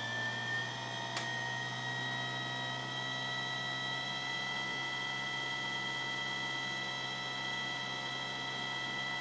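Nidec 50M 24-volt brushless DC motor, the main drive motor of an HP 2605 laser printer, running with a steady whine and hum. Its pitch rises slightly over the first couple of seconds as the supply voltage is turned back up to 24 V and the motor speeds up, then holds steady. There is a single click about a second in.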